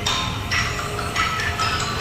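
Quick light clinks and pings, several a second, each ringing briefly at a different pitch, over a steady low rumble.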